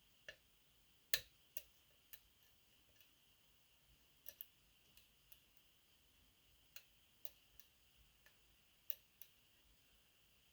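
Irregular, sharp metallic clicks and ticks from a pick and tension wrench working the pins of a Medeco Biaxial lock, whose pins have to be rotated as well as lifted to set. The loudest click comes about a second in, with scattered softer ticks after it.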